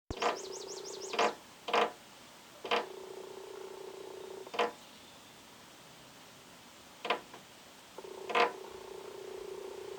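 A small bird pecking at a window pane: about six sharp taps on the glass at irregular intervals, over a steady low hum that starts and stops.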